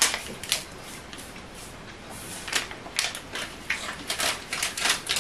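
Plastic sweet wrapper crinkling as it is handled, in short irregular crackles that come thicker from about two seconds in.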